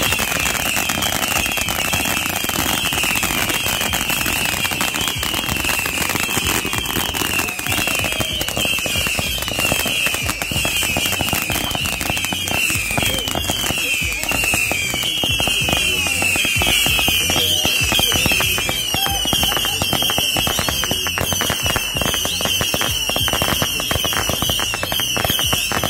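Consumer fireworks going off together: a continuous high-pitched whistle that warbles in quick falling sweeps, over dense crackling from spark fountains.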